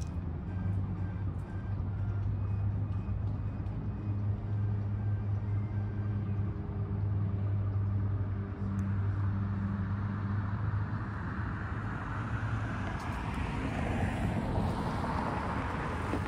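A low, steady engine hum that fades out about two-thirds of the way through, then a car approaching and driving past, its tyre and road noise swelling to a peak near the end.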